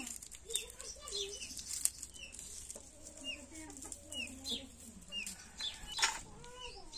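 Chickens: a hen clucking in low wavering notes while short, high, falling peeps repeat about twice a second. A single sharp knock stands out about six seconds in.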